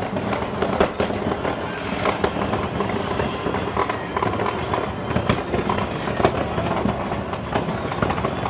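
Fireworks going off in a dense, continuous barrage of bangs and crackles, several sharp reports a second.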